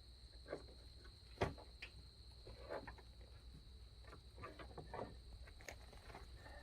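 Faint, scattered clicks and taps from plastic headlight-assembly parts being handled and fitted, with one sharper knock about a second and a half in, over a steady high-pitched tone.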